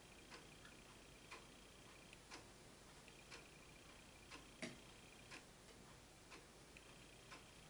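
Near silence with a faint clock ticking steadily about once a second, and one slightly louder click a little past halfway. A faint high-pitched whine comes and goes.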